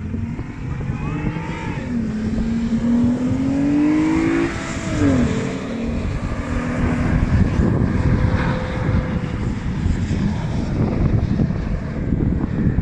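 Off-road vehicle engine revving, its pitch climbing for a couple of seconds and then dropping sharply about four and a half seconds in, followed by dense, rough rumbling as the vehicle drives on.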